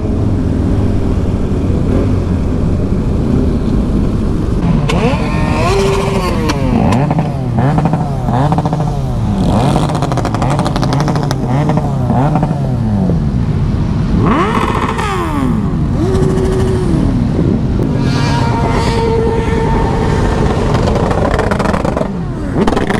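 Motorcycle engine repeatedly revving up and dropping back, its pitch climbing and falling several times.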